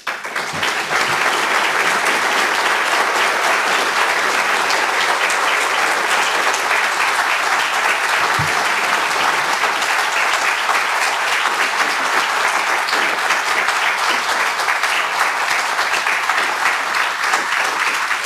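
Auditorium audience applauding steadily, a dense even clapping that starts at once as the speech ends and keeps going.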